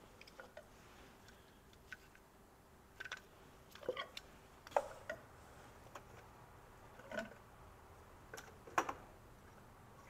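Plastic clicks and snaps of ignition coil connectors being unclipped and coil packs pulled off a BMW E46's inline-six: a scattered series of sharp ticks, some in quick pairs.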